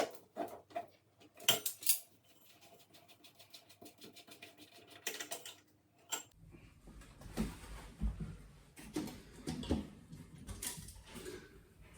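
Clinking and knocking of metal fittings being handled as the flush mechanism of an old high-level toilet cistern is pulled down and disconnected, with a run of rapid light ticks in the middle and a low rumbling handling noise in the second half.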